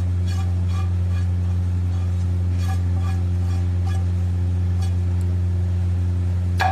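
A steady low electrical hum, with faint scattered clinks of kitchen utensils against a bowl as vegetables are added, and one sharper clink near the end.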